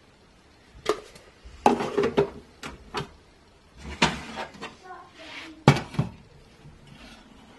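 Plastic and ceramic handling clatter: the reservoir lid of a Breville WakeCup teasmade is shut and two ceramic mugs are picked up and set down in the machine, a string of sharp knocks and clinks with the loudest near the end.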